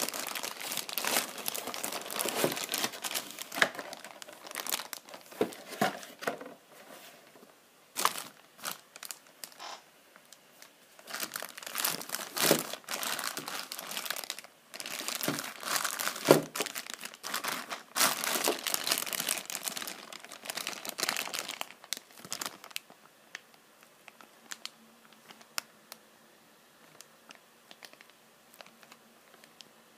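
Clear plastic bag crinkling and crackling as hands handle and unwrap a figure inside it, in bursts with short pauses, dying down to occasional faint crinkles near the end.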